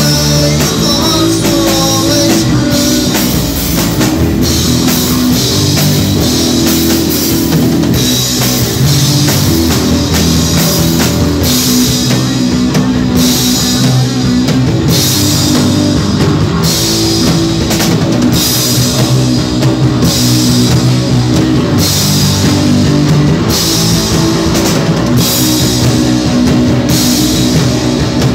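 Live rock band playing loud and continuously: electric guitars over a Tama drum kit, with regular cymbal strikes and a bass line that changes note every second or so.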